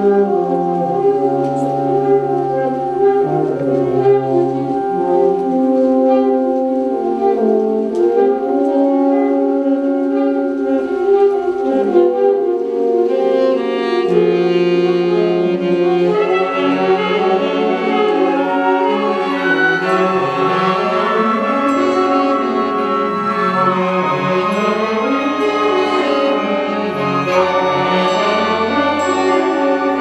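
Symphonic wind band playing a slow passage of sustained chords, with clarinets and brass. The upper parts grow brighter past the middle, and a low held bass note comes in about two-thirds of the way through.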